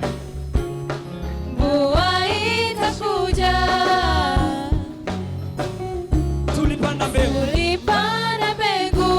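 Gospel song: a band with bass and drums keeping a steady groove, with a sliding, melismatic vocal line over it.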